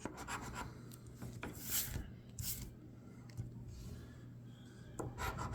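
A paper scratch-off lottery ticket being scratched in quick short strokes. There are two brief, harder swipes about two seconds in, then a quieter pause before the rapid scratching starts up again near the end.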